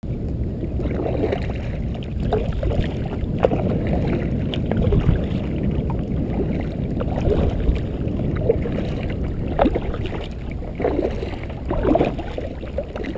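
Water sloshing and lapping against a Native Ultimate kayak's hull as it is paddled, with short paddle splashes every second or two. Underneath is a steady low rumble of wind on the microphone.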